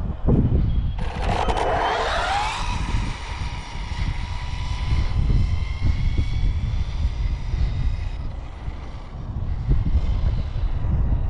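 High-pitched electric motor whine of an RC speed-run car's brushless motor, starting suddenly about a second in, rising in pitch as it accelerates, then holding steady and fading away. Heavy wind buffets the microphone throughout.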